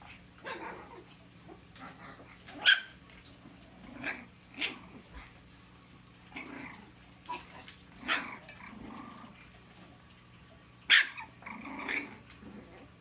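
Six-week-old Bugg puppies (Boston terrier–pug crosses) yapping and growling at play: a string of short puppy barks, with two sharp, loud yelps, one about three seconds in and one near the end.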